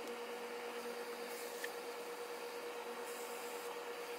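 A steady low electrical hum runs throughout. Over it comes a single light click about one and a half seconds in, then brief soft rustles of suit fabric as a jacket is lifted and turned over near the end.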